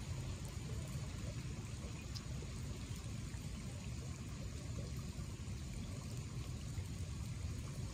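Rain falling on a pond, a steady even patter of drops with a low rumble beneath.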